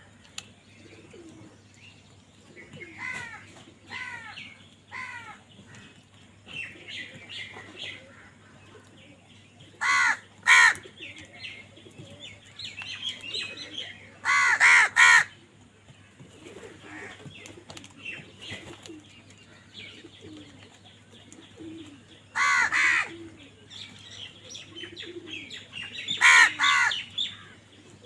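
Crows cawing in harsh, separate calls, loudest in a pair about ten seconds in, a quick run of three around fifteen seconds, and single calls near 23 and 26 seconds, with fainter caws early on. Softer bird chirps and low calls fill the gaps.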